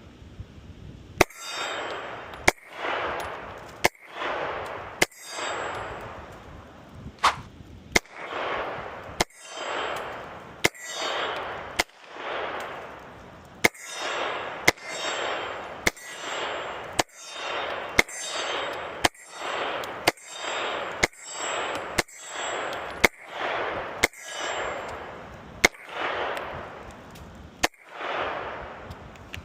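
Canik TTI Combat 9mm pistol fired at a slow, steady pace: about two dozen sharp shots roughly a second apart, each trailing off over about a second.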